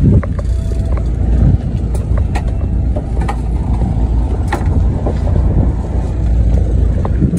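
Boat engine running steadily, a low rumble with wind noise on the microphone, and a few faint clicks.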